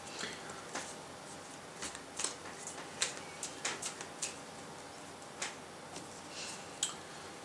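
Yu-Gi-Oh! trading cards handled on a tabletop: about a dozen light, irregular clicks and taps as cards are picked up, laid down and moved.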